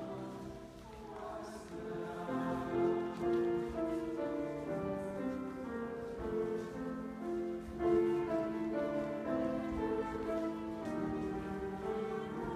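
Live piano accompaniment, with a group of voices singing along.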